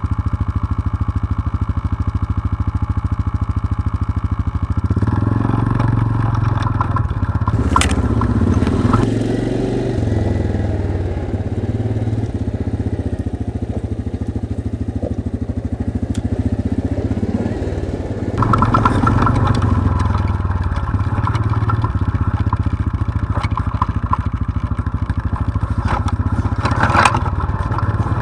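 ATV engine running at trail speed, its note shifting with the throttle several times. A couple of sharp knocks come as the machine goes over rocks, about eight seconds in and again near the end.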